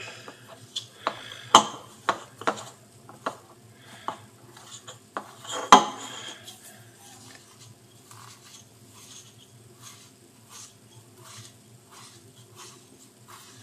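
A utensil stirring a stiff flour-and-water dough in a bowl, knocking and scraping against the bowl in irregular clinks, loudest about a second and a half in and near six seconds in, then softer and sparser.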